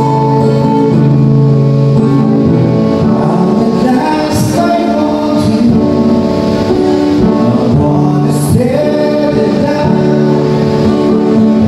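A man singing into a microphone, with long held notes, to his own acoustic guitar accompaniment, amplified through stage speakers.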